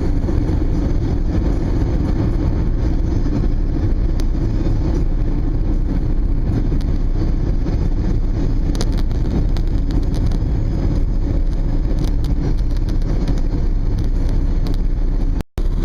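Steady rumble of a car driving, road and wind noise heard from inside, with a few faint ticks and a brief cut just before the end.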